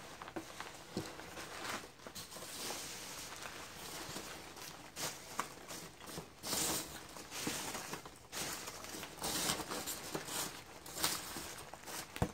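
Hands rummaging through a cardboard box of polystyrene packing peanuts, the foam pieces shifting and rustling in irregular bursts, with bubble wrap crinkling as a wrapped box is uncovered.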